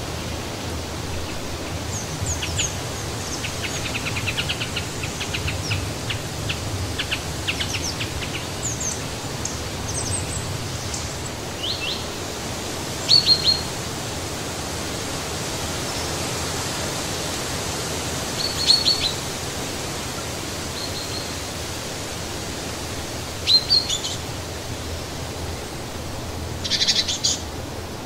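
Steady wind in the trees, with small birds chirping now and then over it: quick runs of short high chirps, and a few louder brief calls from about halfway on.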